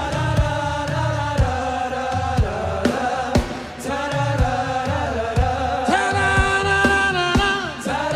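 Gospel worship song sung by a group of voices over a live band, with long held notes on a steady beat of about two hits a second.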